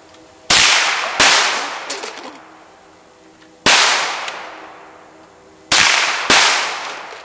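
Five gunshots fired at a steel target at uneven intervals, two close pairs and one single shot, each trailing off in a long echo.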